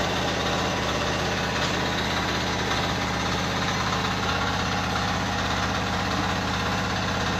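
An engine running steadily at idle, its pitch and level unchanging.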